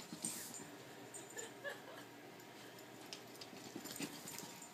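A corgi puppy scrambling about, with faint scattered clicks and rustles and a brief, faint whimper about a second and a half in.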